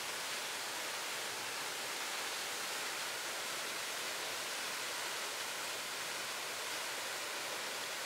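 Waterfall: water tumbling down in a steady, even rush.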